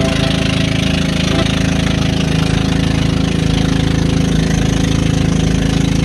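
Outrigger boat's engine running steadily at an even pace, with a fast regular chugging.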